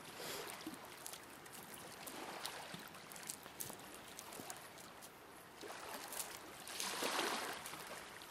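Small waves washing and lapping on a rocky shore, swelling and falling, the strongest wash about seven seconds in, with scattered light clicks and crunches of stones as a red fox walks about on the gravel.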